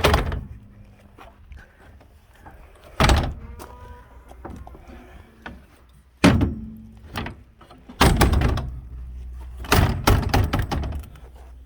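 The fifth-wheel's folding metal entry steps being worked. About five heavy thunks come a few seconds apart, the last ones bunched together near the end, with low rumbling between them.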